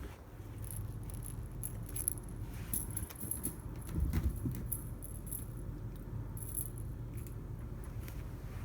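A cat toy jingling and rattling in short, irregular bursts as a cat bats and grabs at it, with a soft thump about four seconds in, over a steady low hum.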